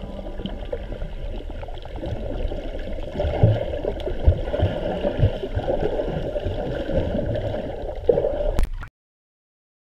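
Muffled water noise recorded underwater while snorkeling, with a few low thumps in the middle; the sound cuts off abruptly near the end.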